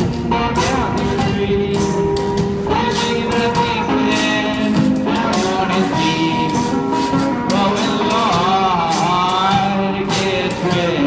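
Live acoustic blues/ragtime busking: an acoustic guitar strummed over a washboard scraped and tapped as percussion in a steady beat, with a man singing in the later part.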